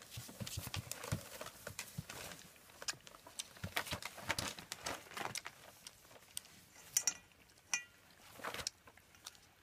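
German Shepherd puppies scrabbling about on paper bedding: irregular scratching, rustling and clicking of paws and claws, with a short high squeak just before eight seconds in.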